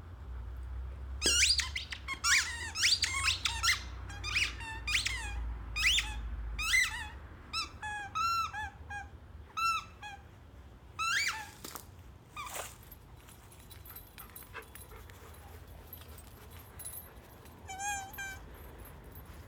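A dog's plush squeaky toy squeaked over and over as a malamute chews it: a fast, uneven run of short, high squeaks for about ten seconds, then quiet, then one more squeak near the end.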